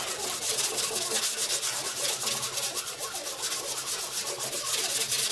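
Sandpaper on a hand sanding block rubbed over a car's repaired trunk lid, in quick back-and-forth strokes, several a second, during smoothing of the dent repair.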